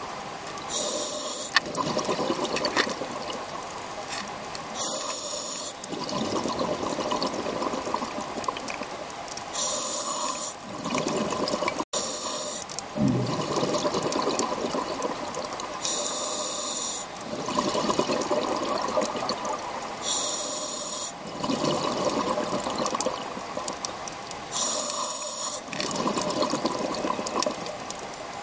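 A scuba diver breathing through a regulator underwater. Short, bright hisses come back about every four to five seconds, seven times, with longer bubbling stretches between them.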